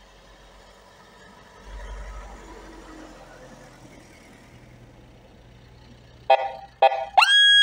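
Pickups pass slowly on a snowy road, with a faint low engine rumble. Near the end an emergency-vehicle siren gives two short horn blasts, then a loud whoop that sweeps up quickly and slides slowly down.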